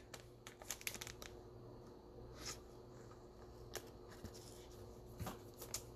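Quiet handling of trading cards: a few faint, scattered clicks and short rustles over a faint steady hum.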